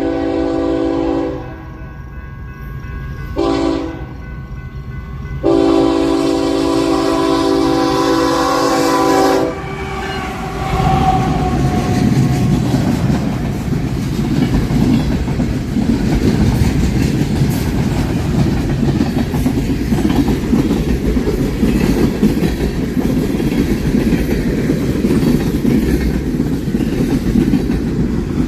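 Locomotive air horn sounding a chord in three blasts: one that ends about a second in, a short one a few seconds later, then a long one of about four seconds. Then the train rolls past with a steady rumble of wheels on rails.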